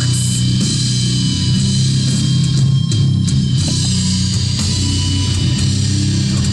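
Heavy metal music with distorted electric guitar and drum kit, loud and steady.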